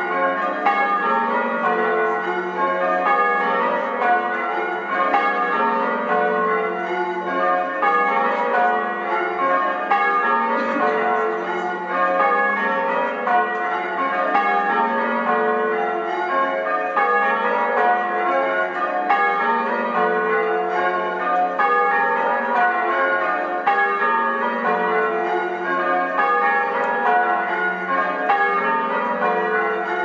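Change ringing on a ring of eight church bells with a 13 cwt tenor in F#, heard from inside the bell tower: a continuous, evenly paced run of overlapping bell strokes.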